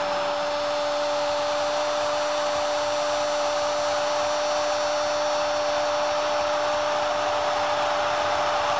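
Stadium crowd roaring after a goal, with a loud steady two-note tone held over it that falls sharply in pitch as it stops near the end.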